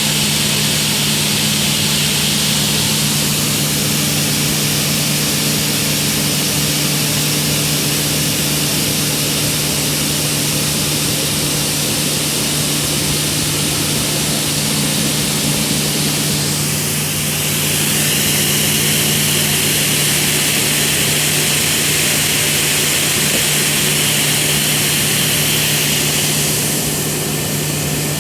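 2004 Altendorf WA 80 sliding table saw running with its dust extraction: a steady motor hum under a hiss of rushing air. About 17 seconds in, the hiss shifts in pitch and gets slightly louder, then eases again near the end.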